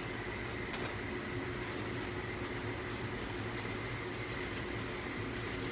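Steady background hum with a faint high whine, and a few light rustles of packaging being handled.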